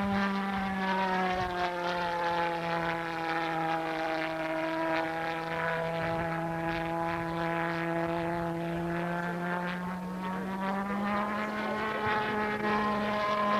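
Pulse-jet engine of a radio-controlled model aircraft buzzing steadily in flight: the low, rasping drone of the WW2 V1 'doodlebug' flying bomb. Its pitch sags slightly, then rises again toward the end as the model passes.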